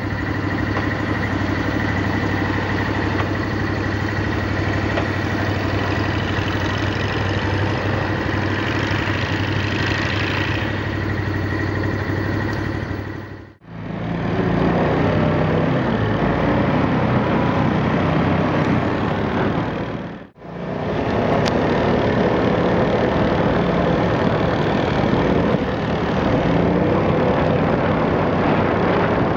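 Max II 6x6 amphibious ATV's engine running steadily under way, with a steady high whine over the engine note. The sound drops out briefly twice, and then a four-wheeler ATV's engine runs as it drives through deep snow.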